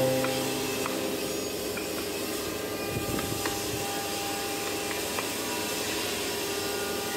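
Steady workshop hiss with a few faint, sharp taps of a hammer driving a chisel into cast aluminium.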